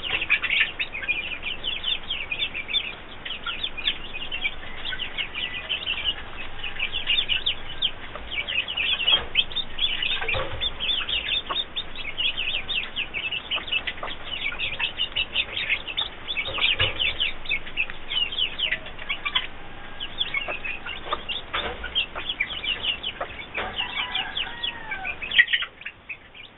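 Newly hatched chicks peeping nonstop, a dense stream of rapid high-pitched cheeps, with the mother hen clucking low now and then.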